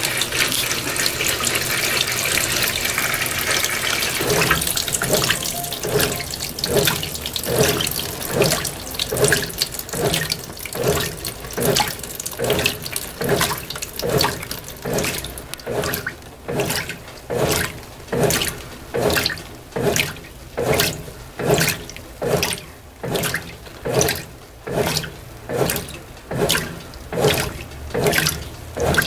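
Brastemp BWT12 top-loading washing machine: water pours into the tub for the first few seconds, then the agitator starts its normal agitation profile, the water swishing back and forth in a steady rhythm a little over once a second, growing crisper toward the end.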